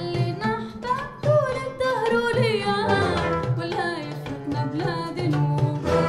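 Live Andalusian-style ensemble music: a voice sings a wavering, ornamented melody over oud and hand percussion, in a lighter passage without the bass. The fuller band comes back in right at the end.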